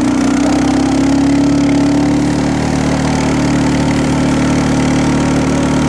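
Engine of the vehicle towing a sled on a strap, running at a steady pitch while it pulls.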